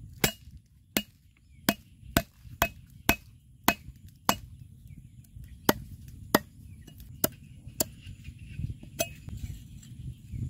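Steel cleaver chopping a fibrous root on a thick wooden stump block: about a dozen sharp chops, one or two a second, with a short pause near the middle.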